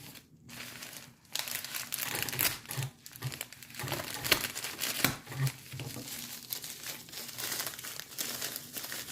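Packing material crinkling and rustling as hands dig through it, with many sharp crackles and a few short pauses.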